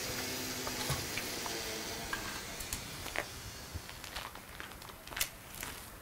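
Footsteps across a concrete and gravel yard: light scuffs and clicks about every half second over a faint steady hiss.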